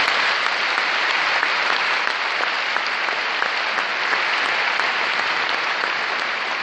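Large audience applauding steadily, a dense clapping that holds an even level throughout.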